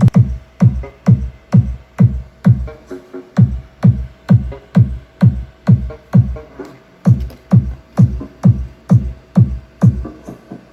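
Electronic dance music with a synthesizer and a steady drum-machine kick about twice a second; the bass drops out briefly twice.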